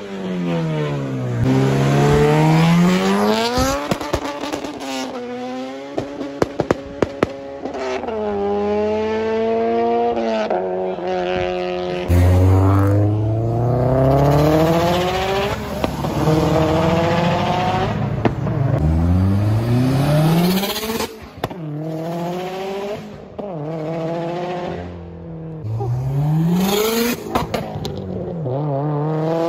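Modified performance car engine revving and accelerating hard, its pitch climbing and dropping again and again through gear changes, with a few sharp cracks about six to seven seconds in.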